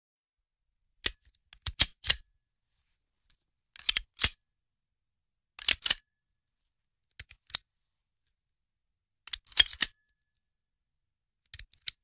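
Revolver handling sounds: six short clusters of sharp metallic clicks and clacks, two to four in each, spaced a second or two apart with silence between.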